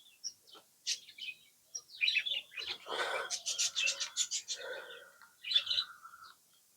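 Small pet parrots chirping: a few short chirps, then about two seconds in a dense run of rapid chirps with a held call under them, stopping shortly before the end.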